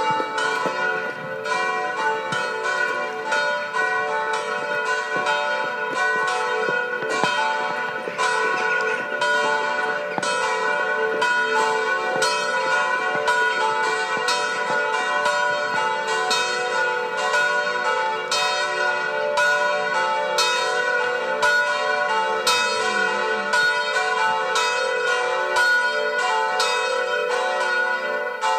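Church bells pealing, many strikes in quick succession, each tone ringing on into the next.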